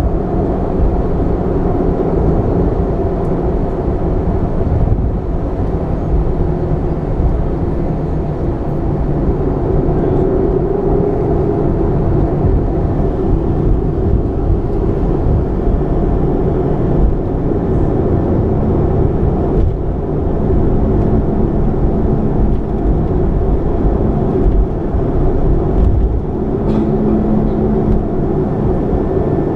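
Boeing 737-300 jet engines running steadily, heard inside the passenger cabin as a loud, even rumble with a constant hum and a few faint clicks.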